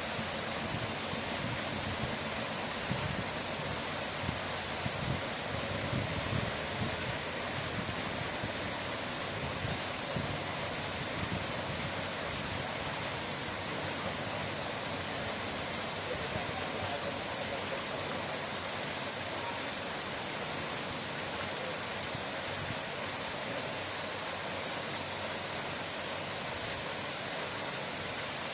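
Running water: a steady, unbroken rushing.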